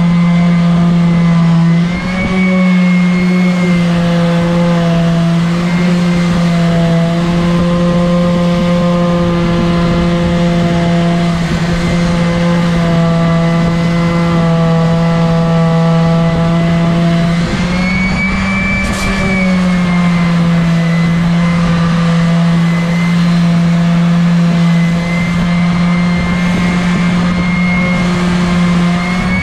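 A Ridgid random orbital sander runs steadily, sanding cork, with a constant motor hum over the hiss of the abrasive. Its pitch steps up briefly about two seconds in and again around eighteen seconds.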